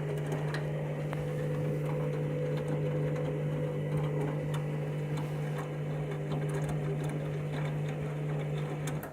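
Candy washing machine running in the heating phase of a wash: a steady low motor hum with a higher steady tone over it and faint scattered ticks.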